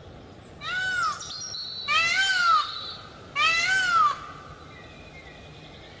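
Male Indian peafowl calling three times, about a second and a half apart. Each call is a short, high cry that rises and then falls in pitch.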